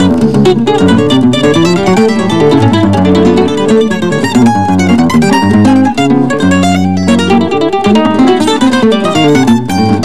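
Bandolim (Brazilian mandolin) picking a fast choro melody, with a seven-string guitar playing moving bass lines underneath.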